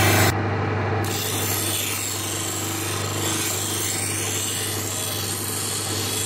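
Steel knife blade being sharpened against a grinding stone spun by a half-horsepower electric motor: a steady rasping scrape over the motor's constant hum. The grinding is loudest at the very start and eases slightly about a third of a second in.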